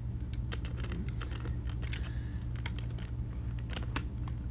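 Light, irregular plastic clicks and taps of a model train tender being handled and set onto the track rails behind the locomotive, over a steady low hum.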